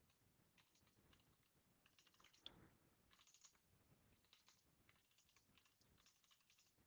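Very faint computer keyboard typing: short runs of soft key clicks with pauses between them.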